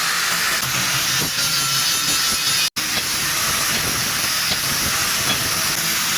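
A steady hiss, cut off sharply for an instant a little under halfway through.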